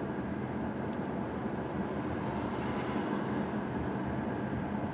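Steady engine and tyre noise inside a moving car's cabin, with a low hum and no sudden events.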